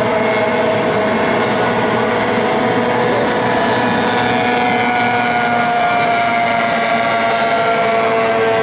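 Several outboard racing hydroplanes running together in a race, a steady, loud engine whine made of several pitches at once that drift slowly up and down as the boats run past.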